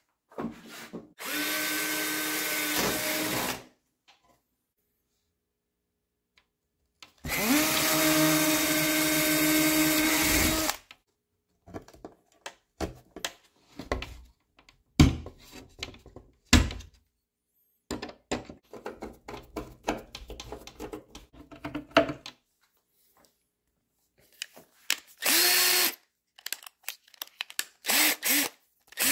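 Power drill running in bursts: a run of about two and a half seconds, a longer run of about three and a half seconds that winds up in pitch as it starts, then two short runs near the end. Between them come scattered clicks and knocks of work on wood.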